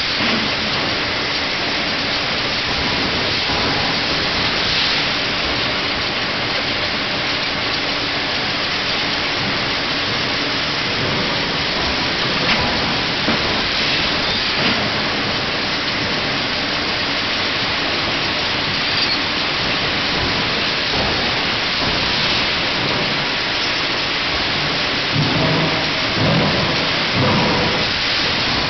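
Steady, loud rushing noise of forging-line machinery, with a faint hum and a few light knocks around the middle and toward the end.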